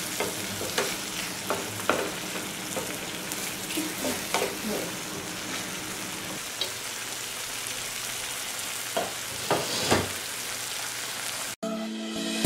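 Squid rings in a thick masala sizzling in a frying pan while a spatula stirs them, with scattered scrapes and taps against the pan. The frying sound cuts off suddenly near the end.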